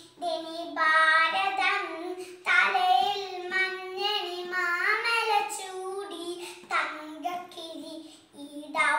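A young girl singing solo and unaccompanied, in phrases with long held notes and short breaths between them.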